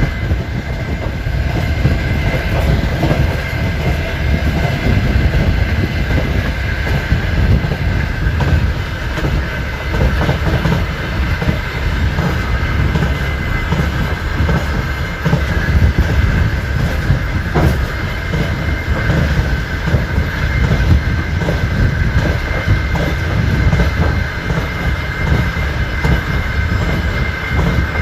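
Express passenger train running, its wheels clattering over the rail joints over a steady low rumble, with a faint steady high whine.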